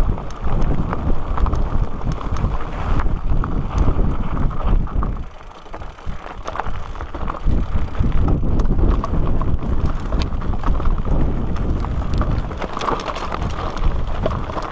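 Mountain bike riding over a rocky gravel trail: tyres crunching over loose stones and the bike rattling, with wind buffeting the microphone. It eases off briefly about five seconds in.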